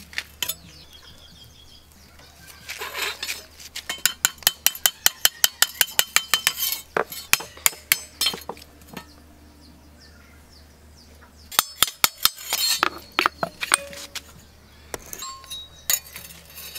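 Hand hammer striking a steel knife blade on an anvil stake, ringing metal-on-metal blows. A fast run of about five blows a second, then scattered strikes, a pause of a couple of seconds, and a second run of blows.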